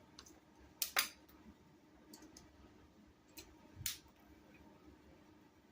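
Batteries being pried out of a Eufy smart lock's battery holder: a few short, sharp clicks and snaps, the loudest about a second in and near four seconds.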